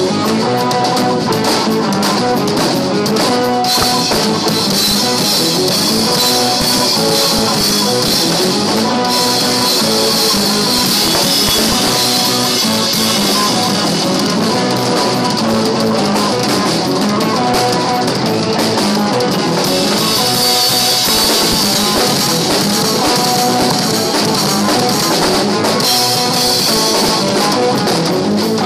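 Rock music with a drum kit and electric guitar playing steadily throughout.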